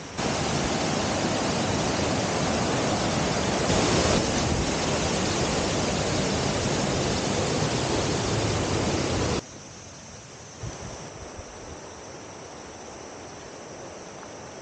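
Jungle river rapids and a small waterfall, a loud steady rush of water. It cuts off abruptly about nine seconds in and gives way to a much quieter background.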